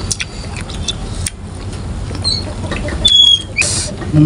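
Close-up crunchy chewing of fresh water apple and cucumber dipped in rujak sauce: a run of sharp little crunches and wet mouth clicks, with a few short high chirps in the background.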